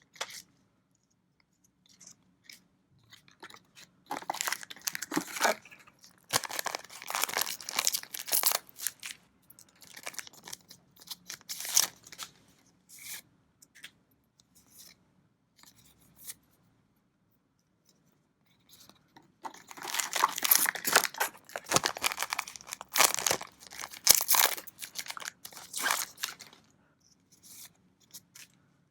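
Plastic and foil packaging of a trading-card booster box being torn open and crinkled by hand, in two long stretches of crackling a quarter-minute apart, with small handling clicks between.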